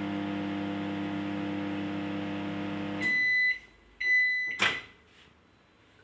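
Microwave oven running with a steady electrical hum that cuts off about three seconds in as the timer runs out, followed by two beeps about a second apart and a sharp click as the door is opened. The oven is on a test run with a new fuse fitted, yet it still does not heat.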